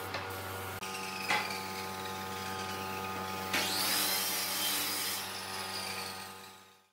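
Compressed-air spray gun hissing as it sprays finish onto a wooden chair, loudest in a burst of a couple of seconds about halfway through, over a steady low hum. The sound fades out just before the end.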